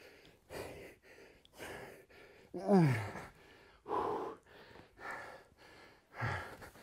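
A man breathing hard from exertion, with short, noisy breaths about once a second. A groan falling in pitch comes about two and a half seconds in, and a shorter one comes near the end.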